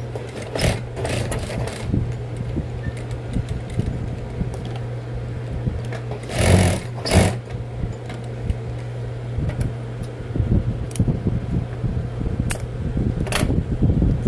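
Table-mounted industrial sewing machine running, its motor humming steadily, with two short louder bursts a little after the middle and scattered light clicks and fabric handling.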